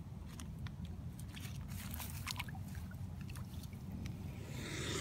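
Steady low rumble of outdoor background noise with scattered faint clicks and ticks, and a loud hiss rising in near the end.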